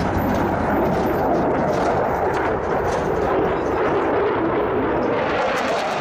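Eurofighter Typhoon's twin EJ200 turbofans at high power with afterburner lit during a display pass: a loud, steady rush of jet noise.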